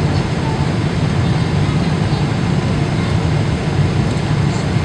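Steady roar of engine and airflow noise inside the passenger cabin of a Boeing 777 airliner on approach, deepest in the low range.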